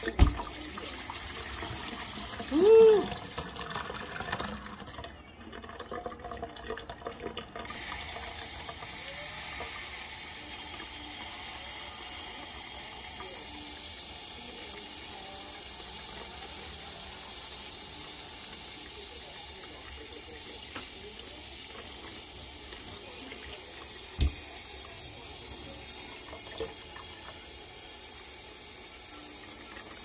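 Kitchen tap running a thin stream into a stainless steel sink: a steady splashing hiss that turns brighter and steadier about eight seconds in. About three seconds in comes a short rising-and-falling call, the loudest sound of all, and a single knock comes near the end.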